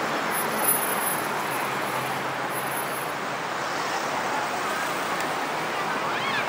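Steady city traffic noise from the boulevard, an even hiss of passing vehicles. A brief high chirp sounds near the end.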